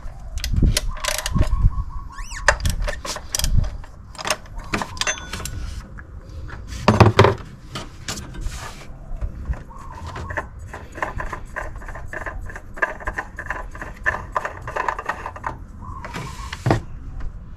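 Ratchet clicking and metal tool knocks as a spin-on oil filter is loosened with a cup-type oil filter wrench, with a fast, even run of clicks in the second half and one louder thump about seven seconds in.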